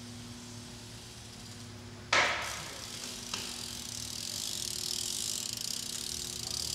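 BMX bike riding: a sudden jolt about two seconds in, a short click a second later, then a rolling hiss that builds, over a steady low hum.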